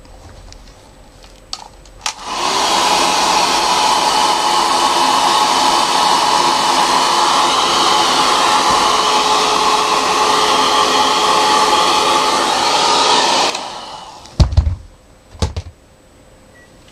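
Handheld hair dryer switched on about two seconds in, running steadily with a motor whine over the blowing air, and switched off after about eleven seconds. Two short thumps follow soon after.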